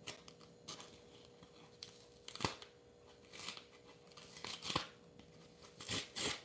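Foil Yu-Gi-Oh booster pack wrapper crinkling and tearing in several short crackles as it is worked open by hand.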